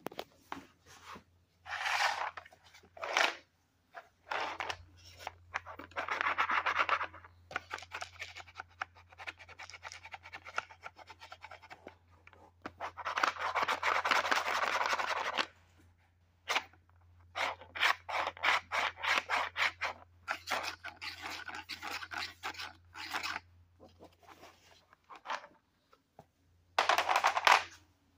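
Hard plastic cat treat puzzle being handled: plastic rubbing and scraping in irregular bursts, some brief and some lasting a few seconds, the longest and loudest about halfway through.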